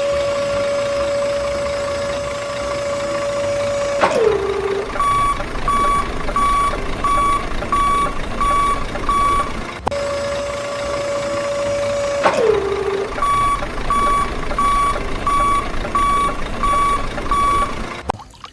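A toy truck's electronic sound effects: a steady pitched engine-like tone that clicks off and slides down in pitch, followed by a run of short reversing beeps about two a second. The sequence plays twice.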